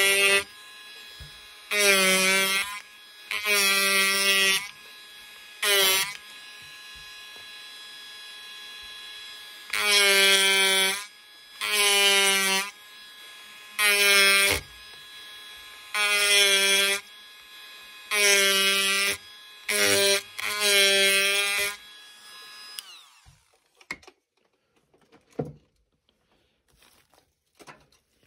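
Automach HCT30 electric reciprocating power carver buzzing in about ten short bursts, each about a second long, as its gouge blade is pushed into basswood to rough out a carving. The bursts stop a little over twenty seconds in, leaving only faint taps from handling the wood.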